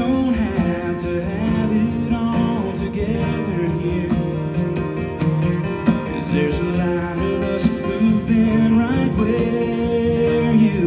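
Country gospel band music played live, an instrumental break between verses of the song.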